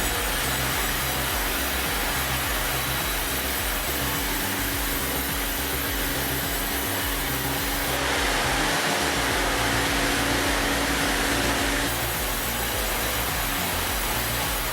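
Steady, loud running of heavy machinery over background music with a pulsing bass beat. From about eight to twelve seconds in, the machine noise turns harsher and brighter, then settles again.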